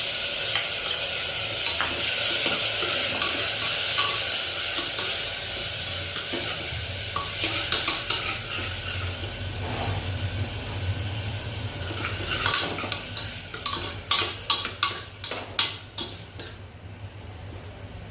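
Chopped tomatoes and vegetables sizzling in hot ghee in a pan while being stirred. About two-thirds of the way through comes a run of sharp taps and scrapes of the spatula against the pan, and then the sizzle quietens.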